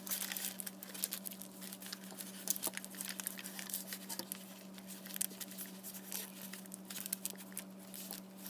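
Aluminium foil crinkling and crackling as fingers wrap and pinch it tightly around a small object, a continuous run of quick, irregular crackles over a steady low hum.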